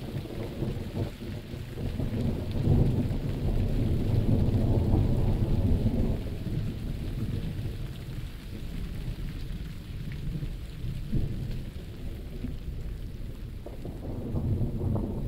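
Thunder rumbling over steady rain. A long low rumble builds about a second in, peaks, and dies away by about six seconds, and another rumble begins near the end while the rain hisses on.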